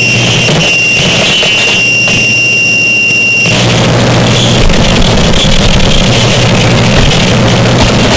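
Harsh noise music: a loud, dense wall of distorted noise with a steady high whine and a low hum. About three and a half seconds in, the whine drops out and the noise becomes thicker and fuller.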